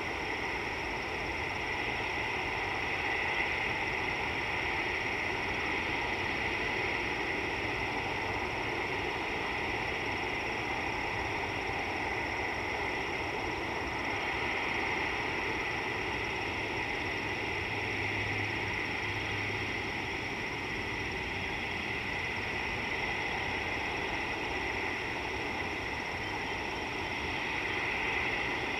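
Steady outdoor ambient hiss with no distinct event, strongest in a high band that swells slightly a few times.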